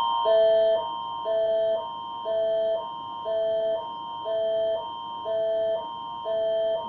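Canadian emergency alert attention signal: a steady high tone over two lower chords that alternate about twice a second each, the pattern repeating about once a second, announcing an emergency broadcast.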